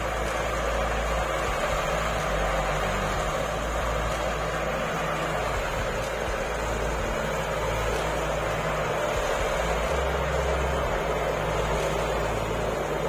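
Crop threshing machine running steadily under load while harvested plants are fed in, a continuous loud mechanical drone with a low hum and the rushing noise of chaff being blown out.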